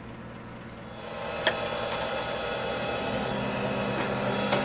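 Wood lathe motor running steadily, humming, louder from about a second in as it spins the spalted beech box blank, with a couple of short sharp clicks.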